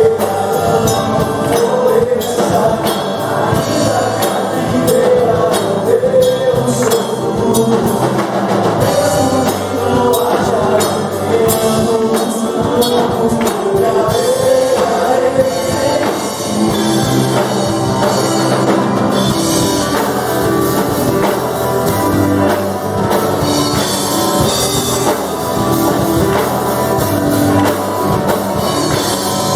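Live church worship band playing a congregational song: drum kit, bass guitar, keyboard and electric guitar together at a steady tempo.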